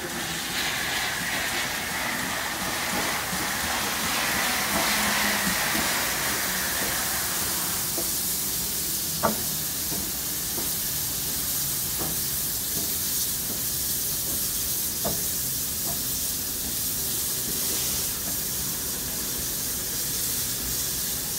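Steam hissing steadily from the standing NSW C38-class steam locomotive 3801. A stronger, higher hiss fades out in the first several seconds, and a few short sharp clicks sound from about eight seconds in.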